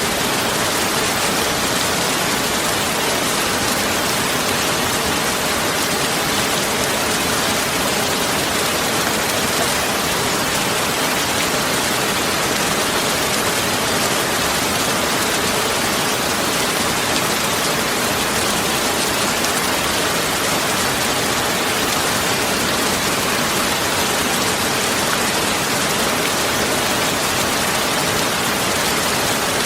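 Steady, even rushing noise with no breaks or changes, of the kind heard from rain or falling water.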